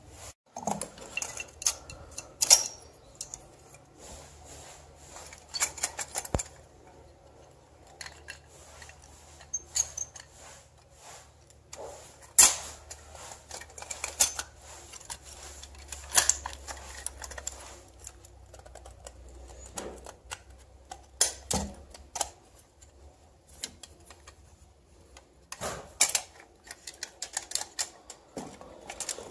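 Metal parts of an old lantern being handled and worked with a screwdriver: irregular clicks, taps and light clatters of metal on metal, over a faint low hum.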